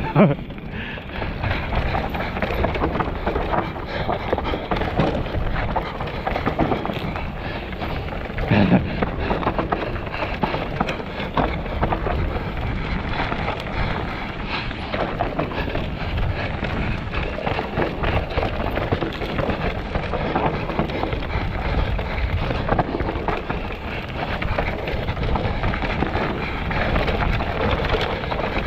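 Mountain bike descending a rough, rocky trail: tyres rumbling over rock and dirt, with constant clattering rattles from the bike as it is shaken over the rocks.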